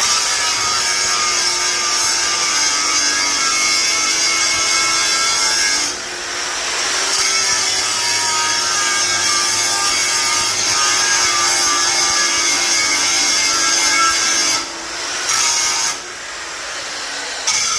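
7-inch angle grinder grinding on steel from a leaf spring: a steady motor whine under a loud, high hiss of grinding. The grinding eases about six seconds in and twice near the end, where the wheel comes off the metal.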